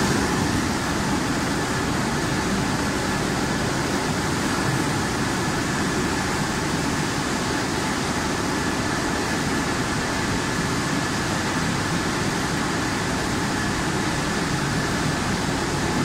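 Steady industrial machine noise from a running potato-processing line (peeler discharge and conveyor belts), a continuous even rumble with a faint high steady whine over it.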